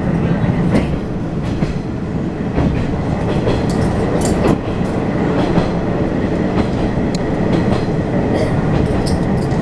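Watarase Keikoku Railway diesel railcar running along the line, heard from inside the carriage: a steady rumble with the wheels clicking over rail joints at uneven intervals.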